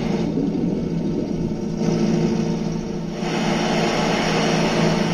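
A steady rumble with a hiss over it that changes abruptly three times, a quarter second, nearly two seconds and about three seconds in.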